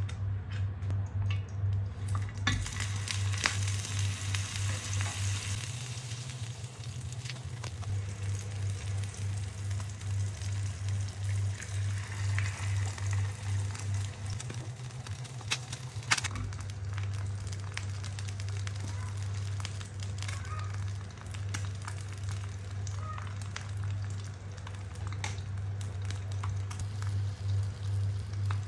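An egg and a sausage frying in oil in a nonstick pan, sizzling steadily from a couple of seconds in. A sharp knock comes about sixteen seconds in, all over a low steady hum.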